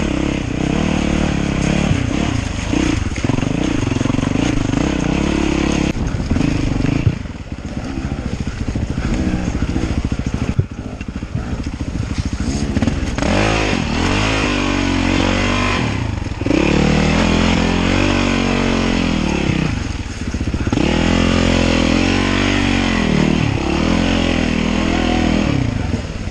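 Dirt bike engine heard from the rider's helmet, its revs rising and falling with the throttle as it climbs a muddy, rocky trail. It drops off briefly several times and picks up again.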